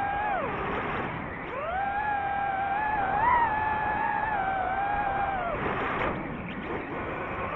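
DJI FPV drone's motors and propellers whining. The pitch falls as the throttle is cut about half a second in, climbs back at about a second and a half, swells briefly just past three seconds, then drops again near six seconds under a rush of air.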